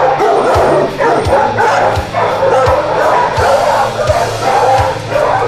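Many shelter dogs barking and yipping in kennel runs, in a continuous din, with background music under it.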